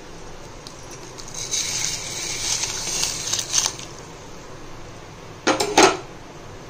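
Soaked basmati rice poured from a bowl into a steel pot of hot water, a splashing hiss for about two seconds, then two sharp knocks near the end.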